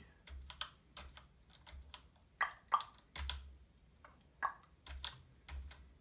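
Keys of an ONEXELOT Enigma RN12 semi-mechanical keyboard (rubber-dome keys with a clicky switch) clicking as they are pressed one at a time in an irregular rhythm. A few presses are louder, around two and a half seconds in and again near four and a half seconds.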